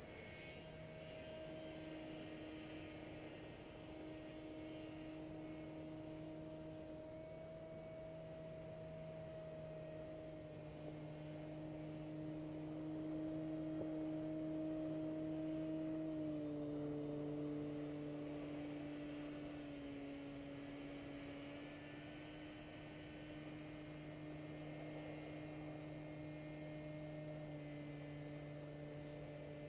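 Distant paramotor engine running: a steady hum that shifts a little in pitch now and then. It grows louder around the middle.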